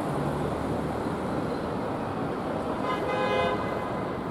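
Street traffic with an approaching tram, and a single short horn toot about three seconds in.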